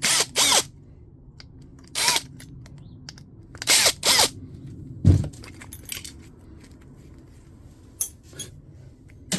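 Small metal scrap parts from a dismantled fax machine clinking and rattling as they are handled and tossed into a bin, in several short jangling bursts, with one duller, heavier knock about five seconds in and a few light clicks after.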